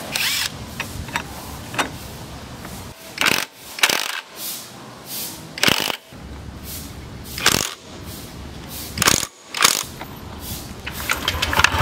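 Cordless impact wrench tightening the nuts on a Honda Click scooter's CVT pulleys in about half a dozen short bursts of hammering.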